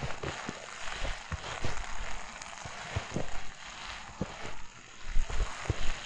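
Footsteps crunching in fresh snow, an irregular walking pace of crisp crunches, each with a soft low thump as the foot lands.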